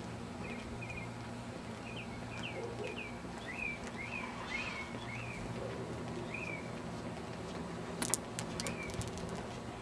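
Small birds chirping in short repeated notes over a steady outdoor background hum, with a few sharp clicks about eight seconds in.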